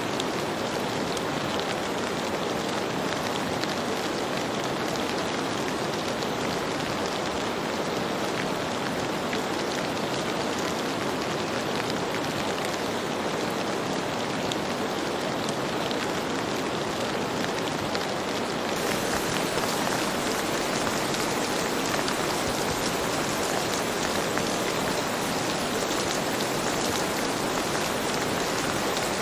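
Steady rain falling, a dense even hiss of drops with faint scattered taps. About two-thirds of the way through, the hiss turns a little brighter.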